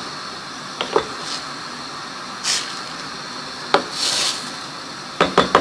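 A metal utensil knocking against a cooking pot several times, with three quick knocks near the end, while the tomato, vinegar and garlic sauce cooks on the stove with a steady hiss and two short hissing bursts.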